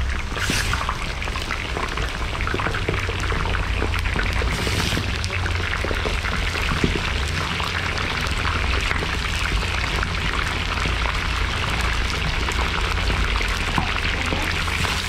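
Pieces of bone-in meat frying in hot oil with browned onions in a large kazan: steady sizzling and spitting crackle, with louder bursts about half a second in and near five seconds, over a steady low rumble.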